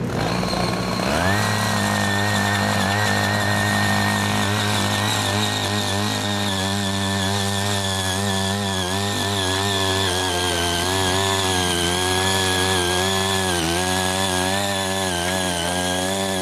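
Small petrol engine of a CY80 mini rotary tiller revving up about a second in, then running steadily at high speed while its tines cut a furrow in the soil. The pitch wavers slightly as it works.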